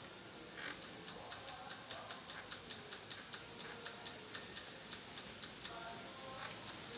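Rapid, even ticking from a Jack F4 industrial sewing machine, about five clicks a second, starting about half a second in. The machine is stuck and its panel shows an E1 error.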